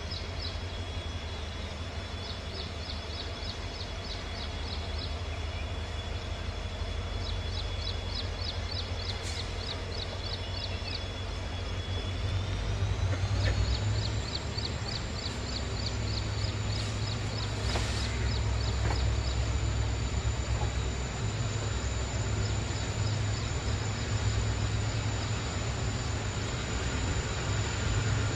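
Passenger train coaches rolling slowly out of a station, heard from inside a coach: a low rumble that grows louder. Over it runs a thin high whine that steps up in pitch about halfway through, with short bursts of rapid high ticking.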